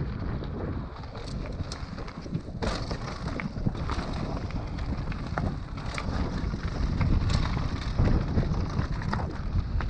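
Wind buffeting the microphone of a mountain bike riding down a rough trail, with frequent clicks and knocks as the bike rattles over the ground.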